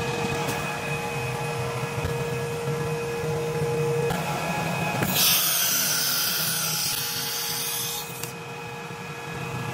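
Laguna CNC router running as a job starts: a steady mechanical hum with a constant whine. About five seconds in, a loud hiss sets in for about three seconds, then the machine drops quieter.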